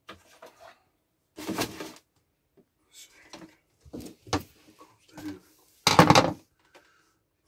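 Irregular knocks and scraping from hands working on electrical wiring inside a wooden cupboard, with the loudest burst about six seconds in as a cable is pulled through.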